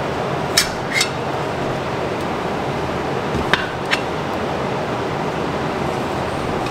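Steel tire spoons clinking against a dirt bike wheel rim as the tire bead is levered on: two pairs of sharp metallic clicks, about half a second in and again about three and a half seconds in, over a steady background hiss.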